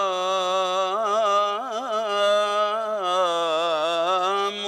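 Solo male voice of an Egyptian munshid chanting a religious ibtihal, drawing one syllable out in a long melismatic line. He holds a note, ornaments it with quick wavering turns about a second in, then settles onto a lower held note.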